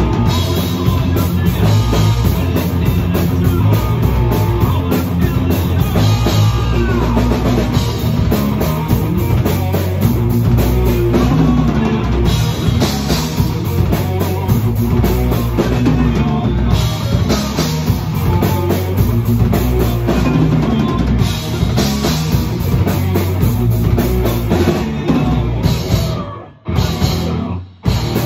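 Rock music with a busy drum kit and electric guitar, loud throughout, with two short breaks near the end.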